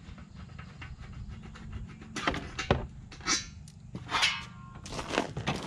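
Scattered clicks, knocks and scrapes of plastic and metal parts being handled and pulled loose in a crash-damaged car's front end, coming about a second apart after the first couple of seconds.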